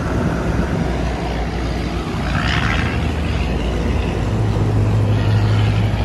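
Outdoor central air conditioner condensing unit running: a steady fan noise over the low hum of the compressor, which grows louder about four seconds in.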